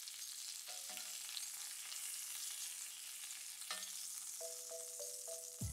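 Duck breast sizzling in an oil-brushed ridged grill pan: a steady high frying hiss, with a few faint short pitched tones over it.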